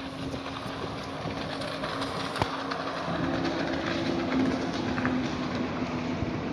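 Jet ski engine running with a steady hum, which strengthens and climbs slightly in pitch about three seconds in, over a steady rushing noise. A single sharp knock about two and a half seconds in.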